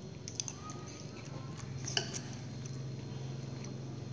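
A few light clinks of a spoon against a china plate, the sharpest about two seconds in, over a steady low hum.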